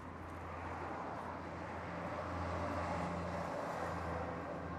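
A motor vehicle running, a low steady hum under a rushing noise that swells to a peak around the middle and eases off.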